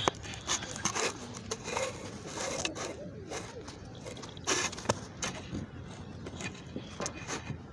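Irregular clicks, rustles and scrapes of a phone being handled, with a nylon jacket sleeve rubbing over the microphone.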